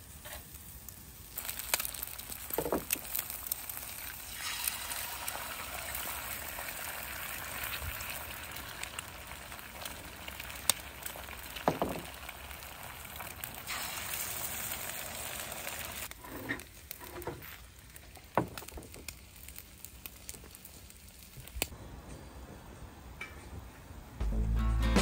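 Sausages and then eggs frying on a portable gas camp stove: a steady sizzle broken by a few sharp clicks and clatters, quieter in the second half. Music comes in just before the end.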